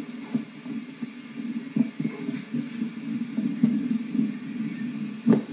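Low, steady rumbling noise with scattered soft clicks and knocks, heard through a TV speaker as an old home-video soundtrack plays back.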